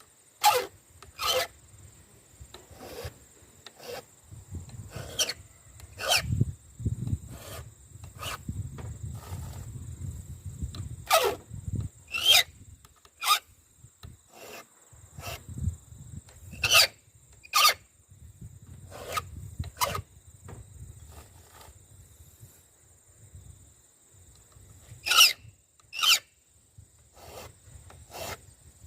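Chainsaw file rasping across the cutter teeth of a full 3/8" saw chain during hand sharpening: short, sharp strokes at an uneven pace, often in pairs about a second apart, with pauses between teeth.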